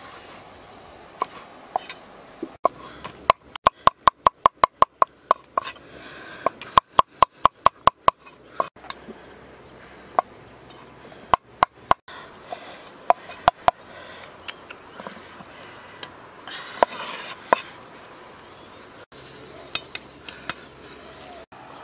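A large knife chopping snails in their shells on a wooden chopping board. The sharp chops come in two fast runs of about five a second in the first half, then as scattered single chops.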